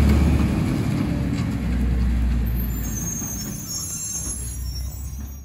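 Automated side-loader garbage truck driving away, its engine drone fading steadily as it pulls off up the street. A faint high-pitched squeal comes in about halfway through.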